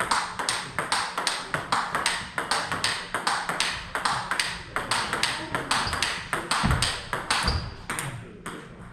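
Table tennis rally: the ball is struck by rubber-faced bats and bounces on the table, giving a steady run of sharp clicks at about three a second. Two low thuds come about seven seconds in.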